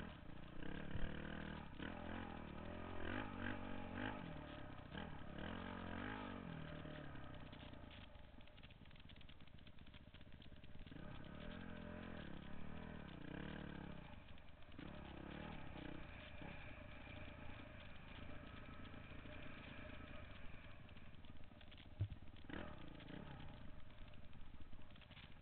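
Off-road dirt bike engine, its pitch rising and falling with the throttle as it rides a rough trail. It is busier over the first several seconds and lower and steadier later, with one sharp knock near the end.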